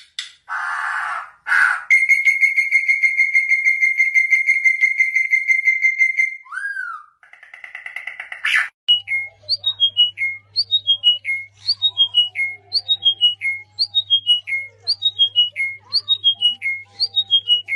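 Birds whistling and calling: first a long, steady, pulsed whistle, then from about nine seconds in a short falling whistled phrase repeated about once a second, over a low hum.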